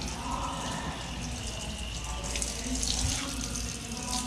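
Water running steadily.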